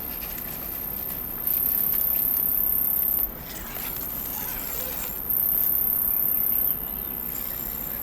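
Insects singing in a very high-pitched, steady trill that comes in bouts of about one and a half seconds, starting and stopping abruptly, with faint scattered clicks.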